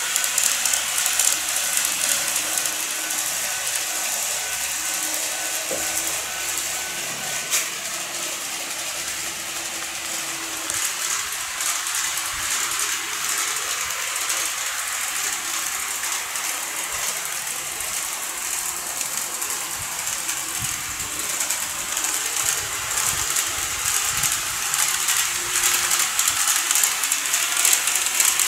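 N-gauge model trains running on the layout's track: a steady, fine rattling clatter of small wheels over the rail joints and points. A thin steady whine in the first seven seconds or so ends with a single click.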